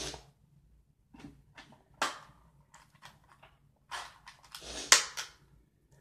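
Sharp snaps and clicks of small objects being handled: one at the start, a loud one about two seconds in, and a cluster between four and five seconds in, where the loudest snap falls, with lighter taps scattered between.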